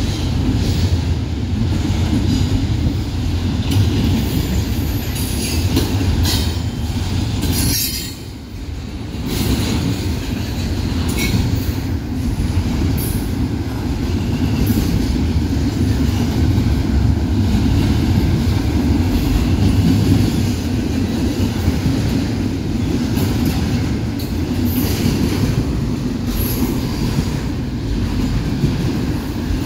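Double-stack intermodal container freight train rolling past at close range: a steady heavy rumble of the well cars on the rails, with short high wheel squeals now and then. The rumble drops away briefly about 8 seconds in.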